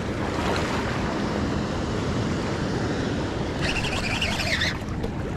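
Steady rush of wind on the microphone and river water, with a brief higher rasping noise about three and a half seconds in.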